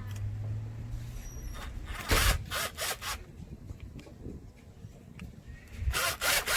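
Short scraping and rubbing rasps, a cluster of several about two seconds in and another near the end, with light rustling between, from handling and working on a hot tub's electrical plug.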